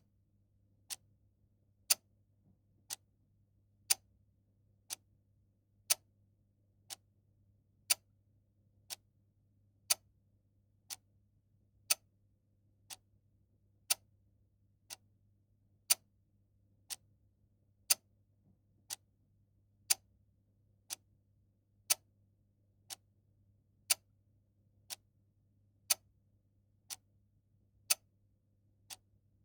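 A clock ticking steadily, one tick a second, with the ticks alternating louder and softer in a tick-tock pattern. A faint steady low hum sits underneath.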